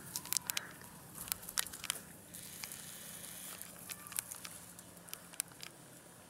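Scattered soft crackles and clicks as beagle puppies chew and nose a rubber chew toy and shuffle through dry grass and twigs.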